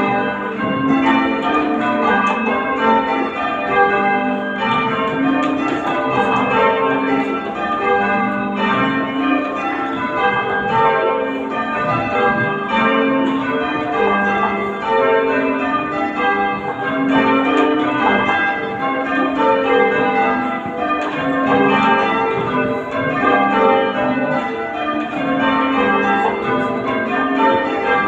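A ring of church bells being rung in changes, the bells striking one after another in a steady, even rhythm, each at its own pitch, with their tones ringing on over each other.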